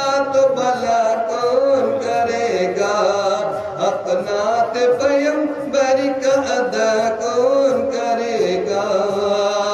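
Male voice singing a naat, an Urdu devotional song in praise of the Prophet, in a chant-like melody with pitch sliding and ornamenting on held notes.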